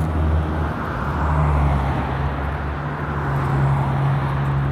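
Motor vehicle running, a steady low drone with a hiss of road noise.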